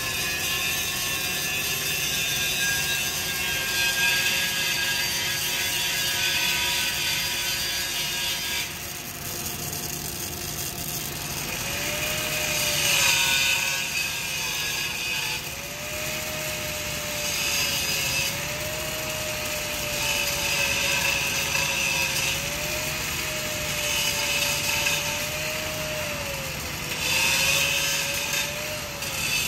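Dual-torch automatic pulsed MIG (PGMAW) welding on 16-inch steel pipe: the arcs run steadily with a hissing noise that swells and eases every few seconds. A faint wavering whine joins in about a third of the way through.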